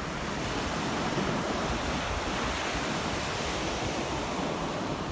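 Sea waves washing onto a beach in a steady rush, with wind buffeting the microphone.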